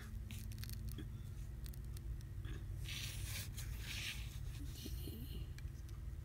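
Adhesive tape under a Samsung Galaxy S5's screen tearing and a pry tool scraping as the screen is slowly lifted off the frame, with light clicks. There are two short bursts of peeling or scraping about three and four seconds in, over a steady low hum.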